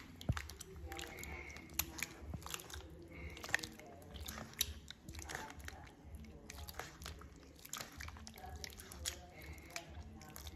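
Hand squeezing grated coconut in water in a plastic bowl to press out coconut milk: wet squelching and sloshing, with many small irregular clicks.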